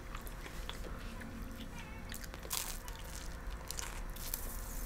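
Pizza being bitten and chewed, with scattered short crackly bites and mouth clicks.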